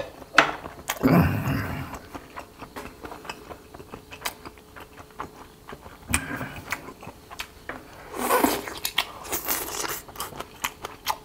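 A man chewing and biting food, a broth-soaked shiitake mushroom from a pork-backbone kimchi stew, with wet mouth noises and scattered small clicks, and a few louder bursts about a second in and again near the end.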